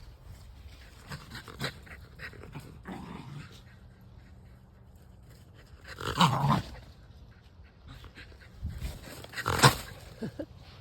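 A border terrier making dog sounds: small scattered noises at first, then two louder outbursts about six and nine and a half seconds in.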